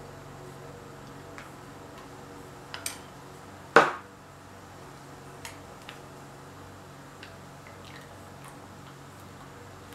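Light taps and clicks of paint cups and a plastic bottle handled on a tabletop, with one sharp knock a little under four seconds in as the bottle is set down. A faint steady hum runs underneath.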